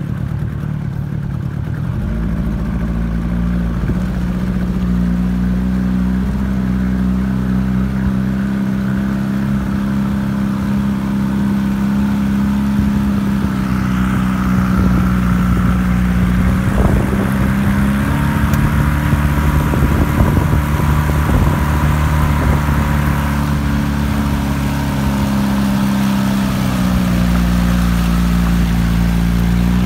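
Yamaha 30 hp outboard motor running steadily at cruising speed, with the rush of water and wind around it. Its pitch steps up slightly a little past halfway and dips briefly near the end before picking up again.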